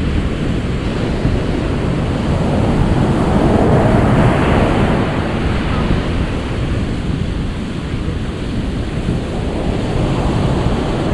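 Ocean surf: a steady wash of waves, with one wave swelling and breaking about four seconds in and another near the end.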